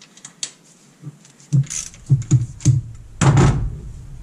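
Clicks and knocks of hand tools and parts being handled in a pickup's engine bay. A few light clicks come first, then a run of heavier knocks over the second half, the last one the loudest.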